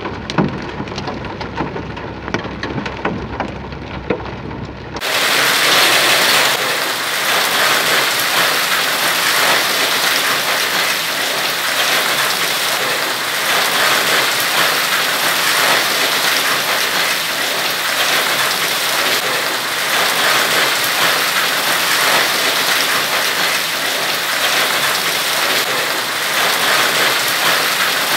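Raindrops pattering and crackling on a car's windscreen, heard from inside the car. About five seconds in, this gives way abruptly to the louder, steady, dense hiss of a heavy downpour, which carries on without a break.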